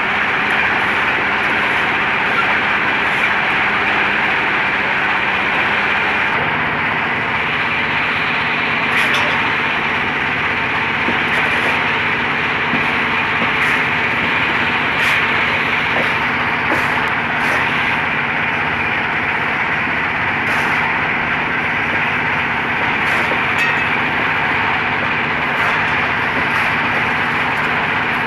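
Steady mechanical running noise of a motor or machine, with faint short ticks every second or two.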